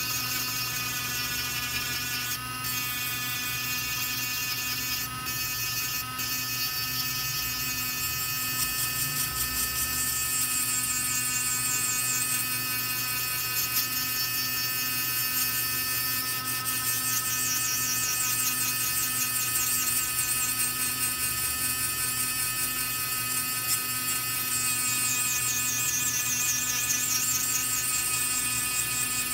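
Handheld mini rotary tool running steadily with a high whine, its spinning bit grinding the broken edge of a phone circuit board. A few faint clicks come in the first few seconds.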